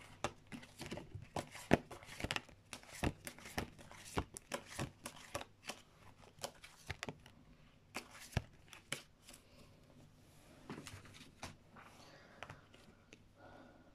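A deck of divination cards shuffled by hand: a run of quick, irregular card slaps and flicks that thins out after about nine seconds.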